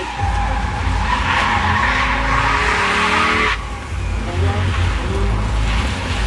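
Red Alfa Romeo hatchback's tyres skidding on the road surface, with the engine running under load. The loud hiss of the skid cuts off suddenly about three and a half seconds in, leaving the engine and a low rumble.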